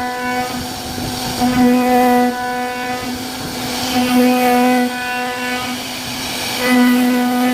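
CNC router carving a wooden door panel: the cutter hisses steadily, and a single-pitched whine swells and fades about every two and a half seconds as the machine moves through its passes.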